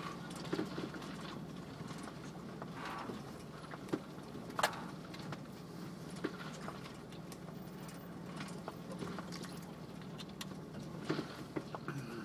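Off-road vehicle's engine running low and steady, heard from inside the cab, with scattered sharp knocks and clunks at irregular moments, the loudest about halfway through.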